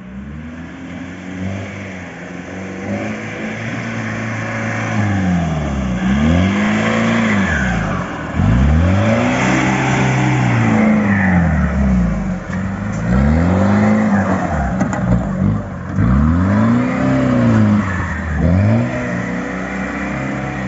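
Mahindra 4x4 off-road jeep's engine revving up and down over and over, its pitch rising and falling every two to three seconds. It grows louder over the first several seconds.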